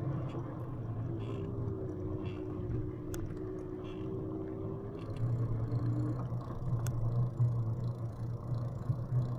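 Lectric XPEAK 2 e-bike being ridden uphill: a steady hum of its electric motor and tyres, growing louder about halfway through, with a thin whine holding from about a second in until about six seconds.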